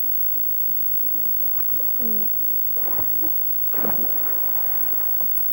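Water splashing in a swimming pool, with two loud splashes about three and four seconds in, the second the bigger, as a swimmer thrashes and throws up spray.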